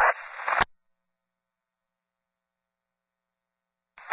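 Police radio scanner: a brief burst of radio static that ends with a sharp click, then dead silence for about three seconds, and a new transmission opening with hiss near the end.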